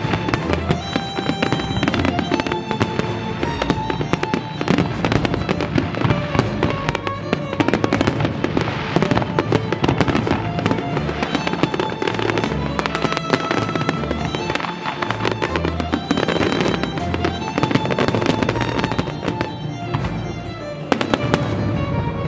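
Aerial fireworks going off in a dense barrage, a rapid mix of bangs and crackling, with music playing along underneath.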